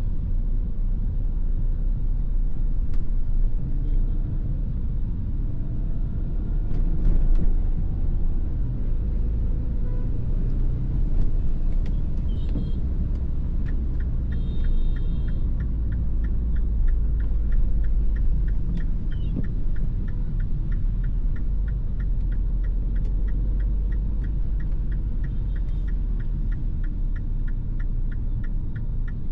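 Inside the cabin of a MINI Clubman (R55) being driven in the rain: a steady engine and road rumble. About halfway through, a regular ticking of two to three clicks a second starts and keeps on, the sound of the turn-signal indicator.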